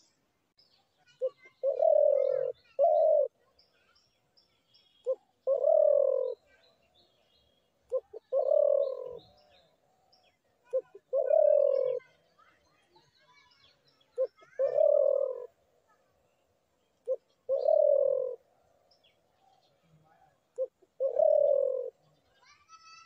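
Spotted dove cooing: a short note and then a longer low coo, repeated about every three seconds. Fainter chirps of other small birds sound in the background.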